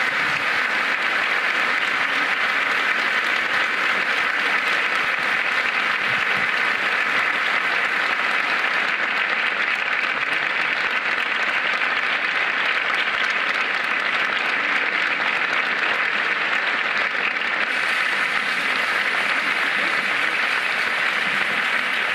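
Large audience applauding steadily, a dense even clapping with no music.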